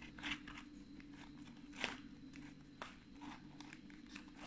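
Faint eating sounds of a person chewing McDonald's french fries: a few soft mouth clicks and crunches, the clearest about two seconds in. Underneath runs the steady low hum of a kitchen refrigerator.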